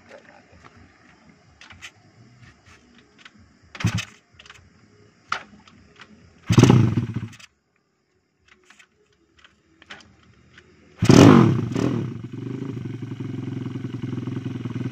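Motorcycle's horizontal single-cylinder engine, just fitted with an Armag racing magneto and stator, being started. A short burst of firing about six and a half seconds in dies after a second. About eleven seconds in it catches and settles into a steady idle, a sign that the new ignition wiring works.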